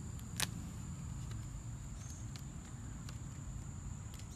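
Outdoor ambience: a steady high-pitched drone of insects over a low rumble, with one sharp click about half a second in and a few faint ticks after it.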